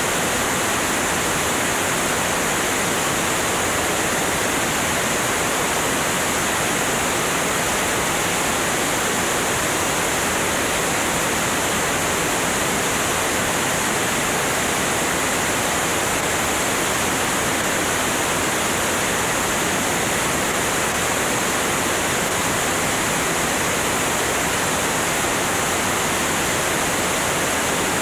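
Steady rush of airflow over a camera microphone mounted under the wing of a Cessna 205 in flight, an even wind noise with no engine tone standing out.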